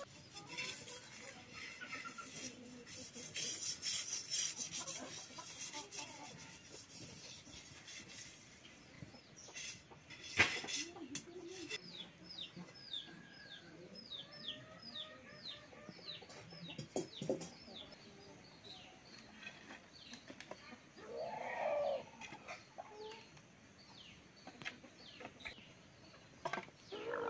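Chickens in the yard: a long run of quick, falling peeps, repeated about twice a second, and a short hen-like call later on. Early on a hand rubs wet clay over a pot with a soft scraping hiss. A sharp knock comes about ten seconds in, and split firewood clatters near the end.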